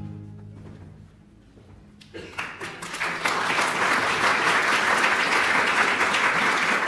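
An orchestra's last held chord dies away, then after a short hush a theatre audience breaks into applause about two seconds in, quickly building to steady, full clapping.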